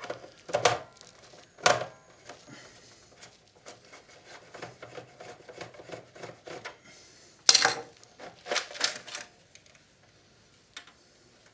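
Plastic cabinet of a vintage Philips radio cassette recorder being handled and opened up, giving scattered clicks and light knocks. The sharpest knock comes about seven and a half seconds in, with a quick run of knocks just after.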